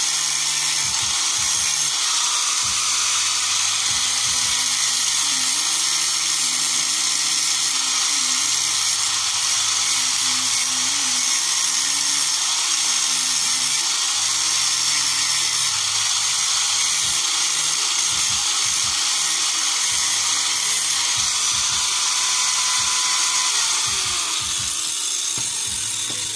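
Electric angle grinder running steadily as it grinds down the worn contact faces of Nissan TD27 diesel rocker arms. It fades near the end and winds down as it is switched off.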